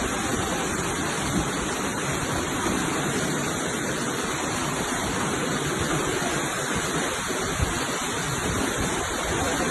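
Floodwater rushing in a steady, even roar.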